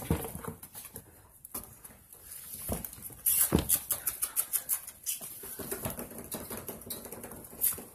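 Red Rottweiler puppies' paws and claws pattering and scrabbling on a hard polished floor as they scramble about, with a quick run of taps in the middle.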